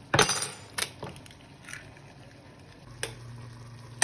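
A spoon knocking and scraping against cookware in a few short clinks, the loudest right at the start, with others about a second, a second and a half and three seconds in. A low steady hum comes in near the end.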